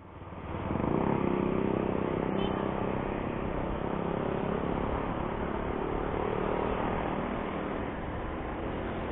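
Motorcycle engine running steadily under way on the highway, with road and wind noise, fading in over about the first second.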